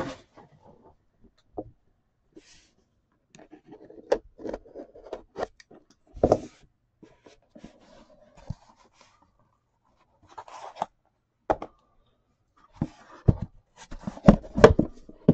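Hands opening and handling a Panini National Treasures cardboard card box: scattered taps, knocks and scraping of cardboard. There is a sharp knock about six seconds in and a quick run of knocks near the end.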